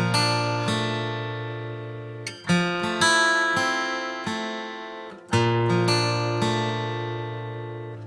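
Background music: acoustic guitar strumming chords that ring out and fade between strums, a strong strum about every two and a half seconds.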